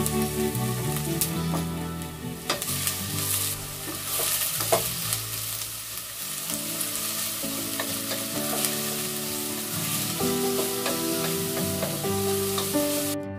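Sliced leeks sizzling as they soften in a stainless-steel pot, stirred with a wooden spoon, with a few sharp knocks of the spoon against the pot. Soft background music plays underneath.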